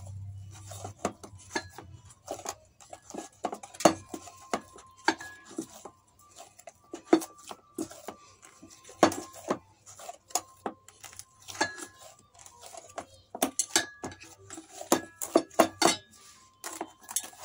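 Pizza dough being kneaded by hand in a stainless steel bowl: irregular knocks and taps of hand and bowl, some followed by a short metallic ring from the bowl.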